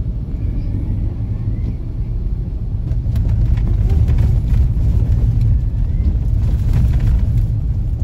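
Car tyres and suspension running over a rutted, icy road, heard from inside the cabin: a steady low rumble that grows louder about three seconds in, with jolts and rattles as the car bumps over the ruts.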